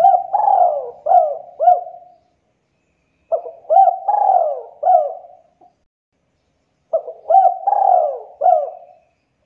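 Spotted dove cooing: three phrases of several rising-and-falling coo notes each, the phrases repeating about every three and a half seconds.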